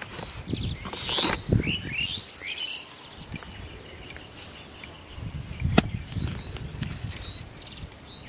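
Small hand hoe chopping into soil with dull thuds and one sharp knock about six seconds in, while small birds chirp in short rising and falling calls.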